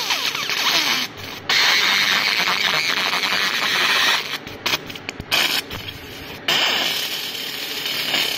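Raycus fiber laser marking machine engraving aluminium: a loud, hissing crackle from the beam ablating the metal, with faint sweeping tones beneath. It breaks off briefly about a second in and again for about a second from four seconds in, between marking passes.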